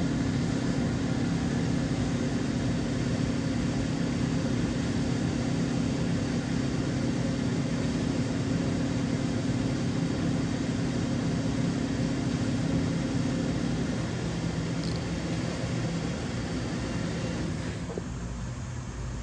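DVF 5000 five-axis CNC machining centre running, a steady machine noise with a humming tone that drops out about three-quarters of the way through, leaving a slightly quieter steady noise.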